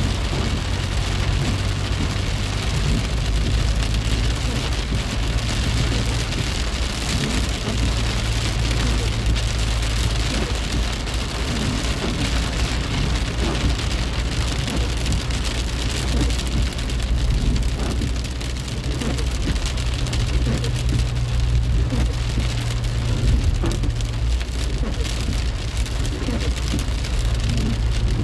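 Heavy rain hitting a moving car's windshield and roof, heard from inside the cabin as a dense, steady patter of drops over the car's low, steady road hum.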